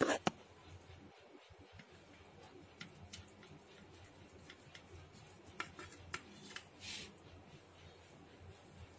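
Table knife cutting through a soft baked savoury cake, with faint scattered ticks as the blade meets the ceramic plate and a short scrape near the end.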